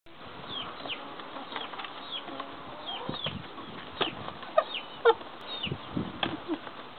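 White-crested black Polish roosters attacking a plastic bucket: wing flaps and a few sharp pecking knocks on the plastic, loudest between four and five seconds in. Many short, high chirps from birds, falling in pitch, run throughout.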